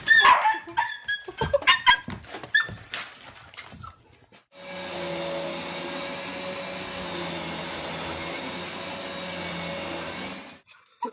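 A dog yelping and whining in a quick run of high cries that fall in pitch. After a short break an electric appliance motor runs at a steady whir for about six seconds, then stops abruptly.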